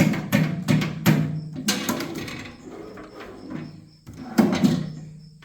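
Steel rolling tool cart's sliding top and drawers being worked, a series of metal clunks and rattles, with the drawers tugged against the lock that holds them when the left slider is closed.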